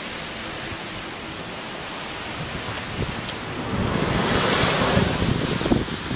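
Wind gusting, swelling to its loudest about four to five seconds in and buffeting the microphone in low rumbles near the end, over a steady hiss of meltwater dripping from the snow-covered trees.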